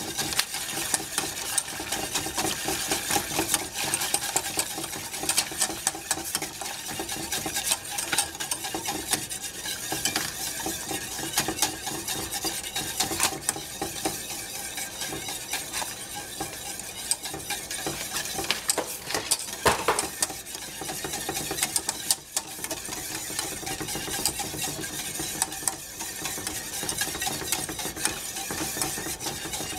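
Wire whisk stirring milk and cream in a stainless-steel saucepan, a steady run of quick strokes clicking and scraping against the metal pan.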